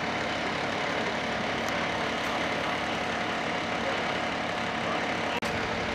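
Fire engine idling, a steady engine drone with no change, with a brief dropout near the end.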